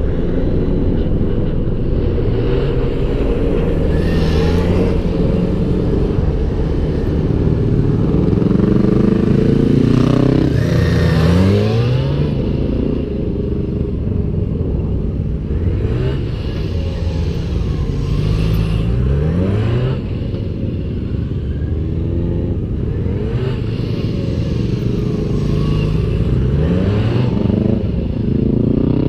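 Motorcycle engines revving up and easing off again and again, rising in pitch every few seconds as the bikes accelerate out of tight low-speed turns and pass close by.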